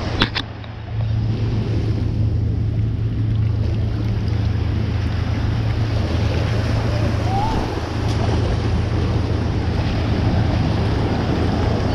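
Shallow surf washing around the feet, mixed with wind buffeting the microphone in a steady low rumble. A couple of sharp clicks come about a quarter second in.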